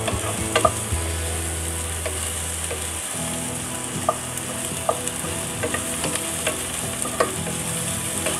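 Chopped onions, garlic and green chilies sizzling in hot oil in a pot, with a steady hiss, while a wooden spatula stirs them and clicks against the pot about once a second.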